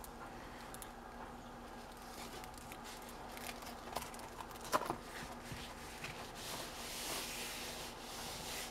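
Rustling and light tapping of a diamond painting canvas and its plastic film being handled, with one sharper tap near the middle and a longer rustle toward the end.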